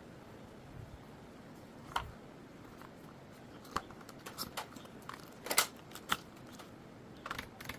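Scattered sharp clicks and clacks from a Rapoo Ralemo Pre 5 mechanical keyboard being handled and pressed, single ones a second or so apart, the loudest a little past halfway and a quick cluster near the end.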